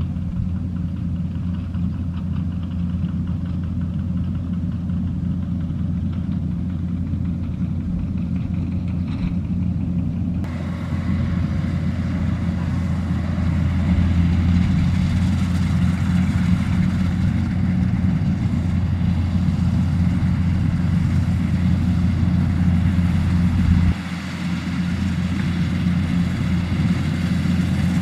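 Kubota combine harvester's diesel engine and machinery running steadily as it cuts rice, a continuous low drone. About ten seconds in it grows louder and fuller, and a few seconds before the end the lowest hum drops away abruptly.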